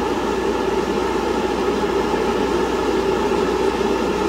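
A motor-driven machine running steadily in the background: an even whirring hiss with a faint hum, unchanging throughout.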